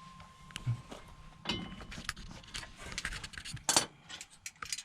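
Hand tools clinking and clicking against metal parts under a truck while a driveshaft's bolts are worked on; irregular small metallic knocks, the sharpest about three quarters of the way through.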